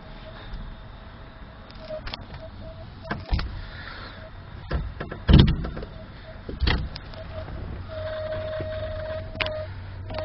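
Inside a 1972 Plymouth Duster's cabin: a steady thin whine that drops in and out over a low hum, broken by several knocks, the loudest a little past halfway.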